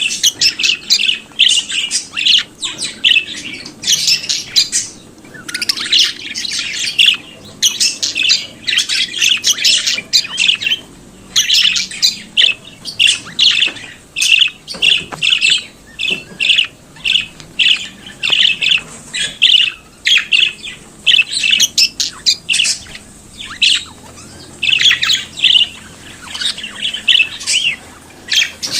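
Budgerigars chattering and warbling: a steady stream of short, fast chirps, squawks and warbled notes, several a second, with no break.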